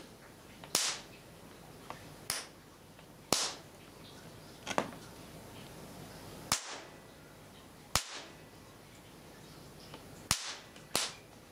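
Sharp electrical snaps of a charged capacitor bank being discharged in sparks onto a circuit board's components and traces. About eight separate cracks, one to two seconds apart at irregular intervals.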